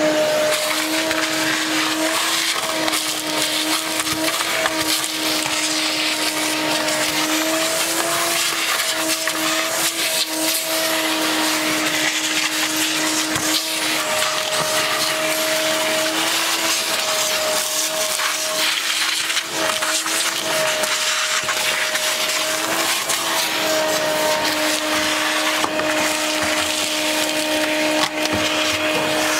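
A handheld electric power tool running continuously: a steady, high motor whine over a strong hiss, its pitch wavering slightly as it bears on the work, with the whine dropping away briefly about two-thirds of the way through before returning.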